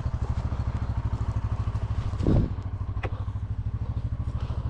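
Coleman UT400 side-by-side's engine idling with a steady, fast chugging pulse. About two seconds in there is a brief low thump, and a sharp click follows a second later.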